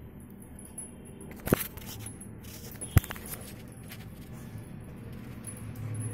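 A metal chain leash clinks, with two sharp metallic clicks about a second and a half apart over a low steady hum.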